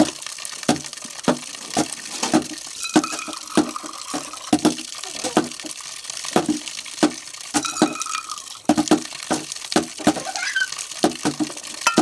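Metal bowls, cups and plates clinking and knocking together as they are washed by hand and stacked, with water splashing. A few of the knocks leave a bowl ringing briefly.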